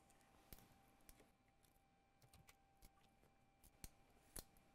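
Near silence: room tone with a faint steady tone and a few scattered faint clicks, the loudest near the end.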